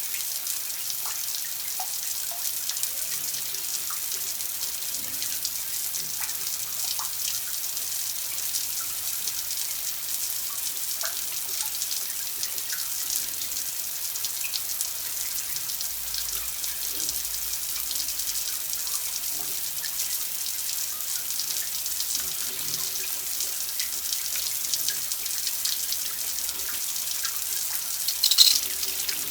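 Water running steadily from a tap into a sink: a continuous splashing hiss with small drips through it, and a brief louder splash near the end.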